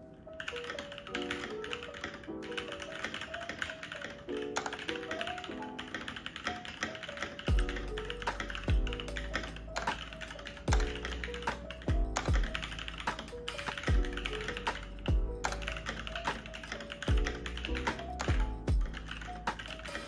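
Fast, continuous typing on a Blitzwolf BW-KB1 60% mechanical keyboard with Gateron Red linear switches: a dense patter of keystrokes. Background music plays along, and a regular deep beat joins it about seven seconds in.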